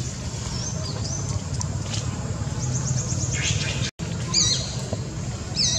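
High-pitched animal chirps over a steady low hum: a quick run of chirps a little past halfway, then two louder swooping chirp calls in the second half. The sound cuts out for an instant just before the first of them.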